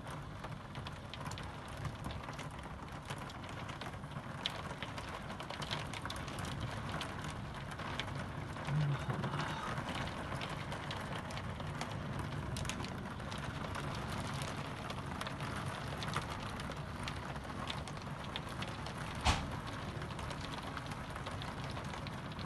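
Heavy rain heard through a closed window: a steady hiss with scattered drops ticking, a brief low bump about nine seconds in and one sharp click late on.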